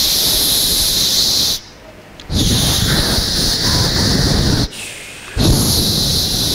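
A boy imitates a plane's engine starting by blowing a loud hiss into a headset microphone held to his mouth. It comes in three long bursts with short breaks between.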